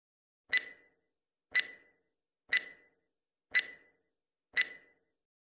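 Countdown timer sound effect: five sharp clock ticks, one a second, each with a short bright ring.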